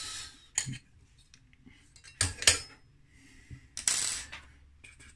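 Small hard plastic and metal 3D-printer parts clicking and knocking as they are handled: a few separate sharp clicks, the loudest about two and a half seconds in, and a brief scrape about four seconds in.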